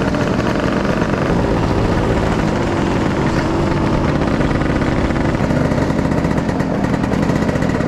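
Scooter engine running steadily as the scooter is ridden, recorded close up from the rider's own machine.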